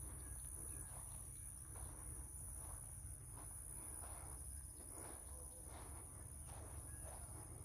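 Insects drone steadily in one constant high-pitched note, over a low rumble, with faint irregular rustling.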